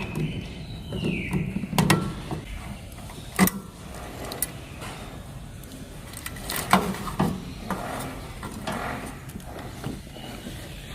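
Handling noise from tools and small parts being moved about: irregular clicks and knocks, a few sharper ones standing out.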